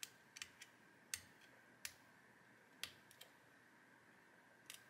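Small, sharp clicks and ticks at irregular intervals, about ten in all, as a metal pick tool pries at the metal grate and its tabs in the plastic retainers of a printer flushing pad tray, working a tab loose.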